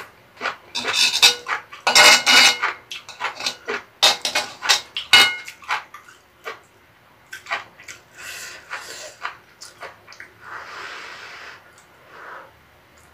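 Metal spoon scraping and clinking against a wide pan while scooping up fried rice. A loud run of sharp scrapes and clinks with a brief metallic ring fills the first five seconds or so, then softer, scattered scraping follows.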